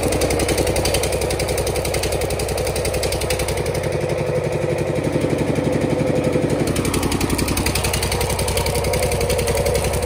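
Engine running steadily with a fast, even beat; a falling tone sweeps down about seven seconds in.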